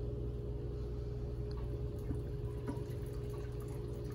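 Hot water pouring in a thin stream from a glass measuring cup onto mashed grain in a strainer, sparging to rinse the sugars out of the grain, with a few faint small clinks, over a steady low hum.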